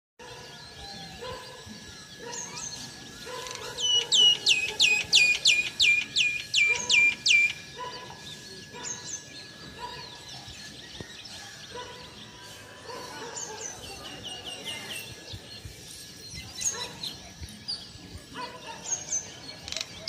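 Birds calling: a loud, fast run of about a dozen sharp, high notes, each falling in pitch, with shorter runs of the same notes twice later. Softer, lower call notes repeat about once a second underneath.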